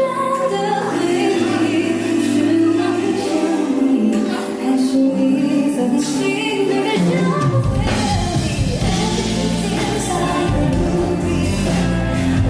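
Live pop song performance: a female voice singing over band accompaniment, with bass and drums coming in about halfway through.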